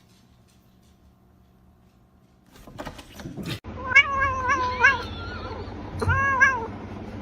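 Domestic cat meowing: a quick run of short, wavering meows, then another meow about two seconds later, with a longer one starting right at the end. Before the meows there are a couple of seconds of near silence and a few brief rustles and clicks.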